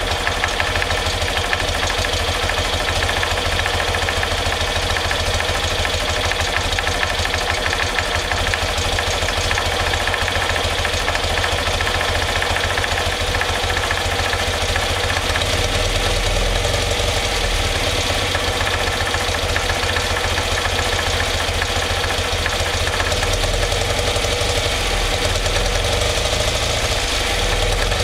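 BMW R90/6 air-cooled flat-twin engine running steadily at idle on Keihin CR Special carburettors while the carburettor mixture is being set.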